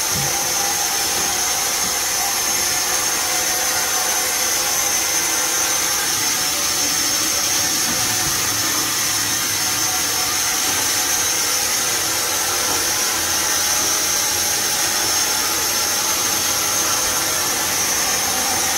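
Steady, unbroken hiss of steam in a steam locomotive's cab, beside the open firebox, with no chuffing rhythm: the engine is standing in steam rather than working.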